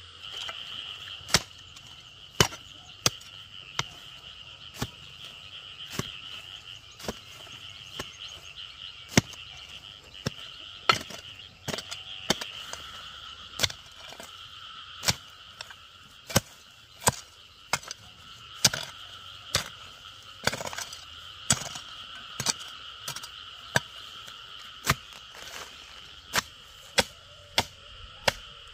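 Short-handled hand hoe chopping into hard, stony soil while digging a trench, about one sharp strike a second at an uneven pace. A steady high drone runs behind the strikes.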